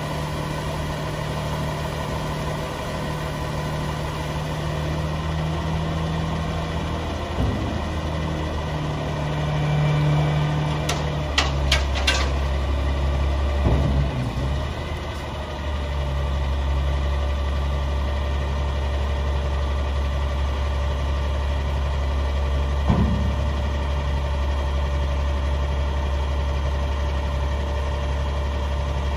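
Caterpillar C9 ACERT 8.8-litre six-cylinder diesel idling steadily, with a quick run of sharp clicks about eleven seconds in and a single sharp knock about twenty-three seconds in.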